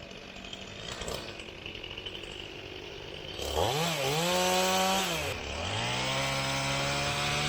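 Chainsaw running quietly at first, then throttled up sharply about halfway through. It eases off for a moment, then revs up again and is held at a steady high speed.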